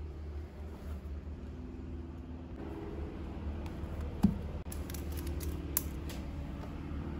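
A smartphone set down on an exercise book on a desk: one sharp knock about four seconds in, then a few light clicks of handling, over a steady low hum.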